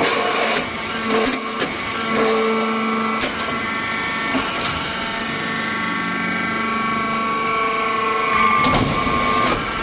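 Hydraulic salt block press running: a steady machine hum made of several held tones, broken by sharp clanks and clicks as the press moves through its cycle, with a faint whine rising slowly about halfway through.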